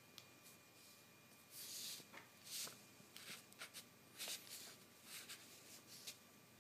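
Faint rustling and scraping of loose printer-paper sheets as a kitten paws at them and pushes the top sheet. The rustles come in several short bursts, the first about a second and a half in, with a few small clicks between.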